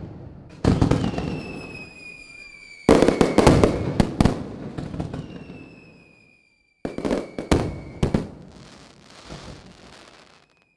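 Fireworks bursting: a bang about a second in, a rapid cluster of bangs and crackles around three to four seconds in, and more bangs near seven and eight seconds. Between the bursts come whistles that slowly drop in pitch.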